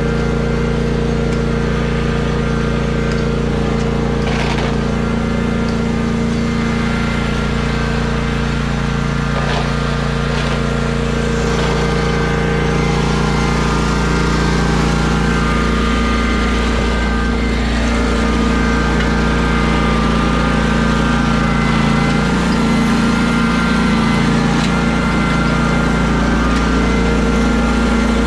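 Lawn mower engine running at a steady speed, its low hum shifting slightly from about halfway through.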